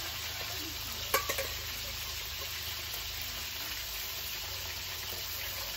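Fish grilling over a fire, sizzling with a steady hiss, and a brief knock about a second in.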